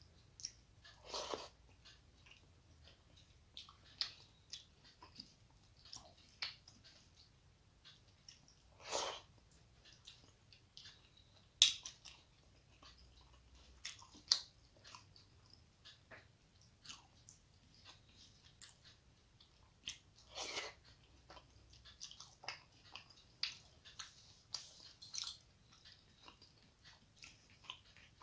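Close-miked chewing and mouth sounds of a person eating rice and fish curry by hand, with many small scattered clicks and smacks. There are a few louder bursts, and one sharp click about twelve seconds in is the loudest.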